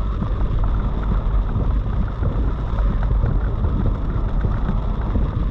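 Heavy rain pelting a moving car, over a steady low rumble of road and engine noise and wind buffeting the microphone.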